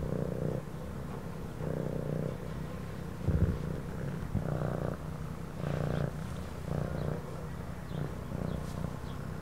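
Domestic cat purring, the low rumble swelling and fading about once a second with each breath, with one brief soft bump a little past three seconds in.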